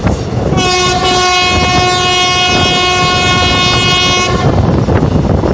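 Electric locomotive horn, the WAP-4 hauling the train, sounding one long steady blast of about four seconds, over the rumble and wheel clatter of the moving train.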